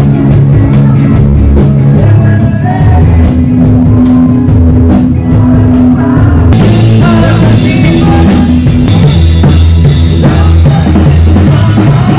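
Loud live band music with a drum kit keeping a steady beat over deep sustained bass notes. Cymbals grow louder about halfway through.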